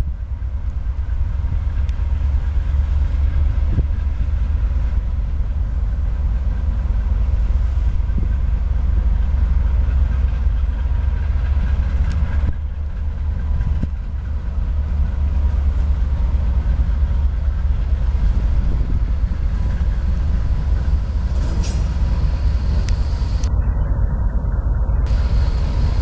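GE SF30C diesel-electric locomotive running with a steady low engine rumble as it pulls a train of empty wagons slowly toward and up to the listener.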